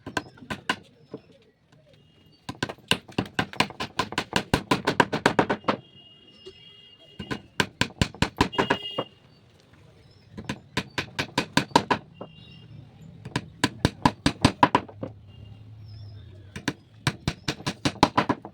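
Hammer tapping on wood in quick runs of about six blows a second, five runs with short pauses between.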